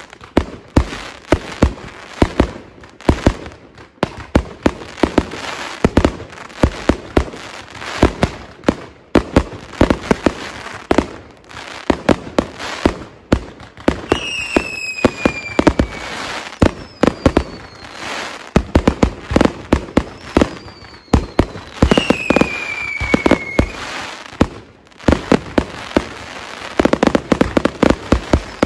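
Consumer fireworks display going off: a rapid run of bangs and crackles. Two whistling effects fall in pitch, one about halfway through and another about three quarters of the way in, and a denser crackle comes near the end.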